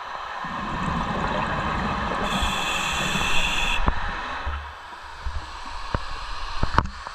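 Scuba diver breathing through a regulator underwater: a long rushing breath-and-bubble noise with a brief high whistling hiss in the middle, then quieter with a few sharp clicks near the end.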